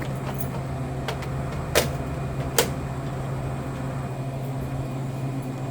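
A few sharp clicks of vending machine parts being handled, the two loudest a little under a second apart near the middle, over a steady low hum.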